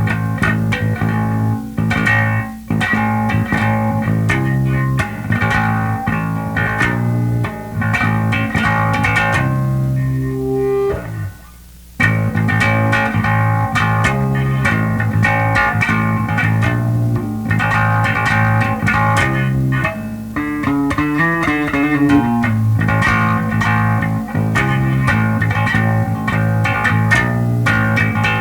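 Electric bass riffs from a Squier Mini P Bass with DiMarzio Relentless pickups, played through a Sound City Master Lead 50 amp into a Schroeder 12PL cabinet. The playing stops briefly about 11 seconds in, and around 21 seconds in there is a wavering, sliding run of pitch.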